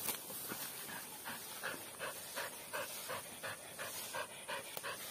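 Dog panting with its mouth open and tongue out, in quick, even breaths of about three a second.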